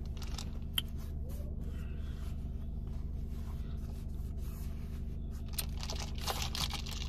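Steady low hum inside a car cabin, with scattered faint clicks and light rustling and scraping from a plastic drink cup and clothing being handled, the rustling thickening near the end.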